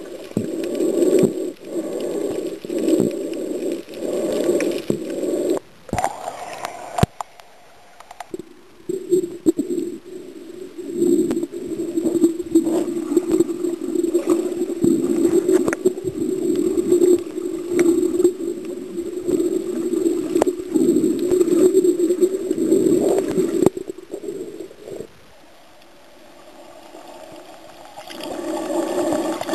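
Muffled underwater sound picked up by a submerged camera: a rushing, rumbling wash of water movement with scattered sharp clicks and rattles. It cuts out briefly about six seconds in and drops low again near the end.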